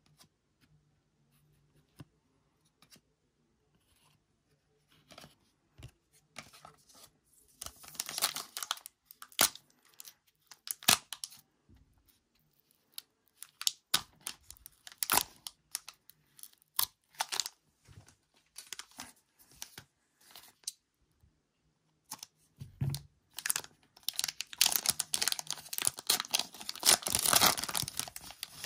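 Foil wrapper of an Upper Deck Space Jam trading card pack crinkling and tearing open, among scattered clicks and taps of cards being handled. A short burst of crinkling comes about a third of the way in, and a long stretch of steady crinkling and tearing near the end.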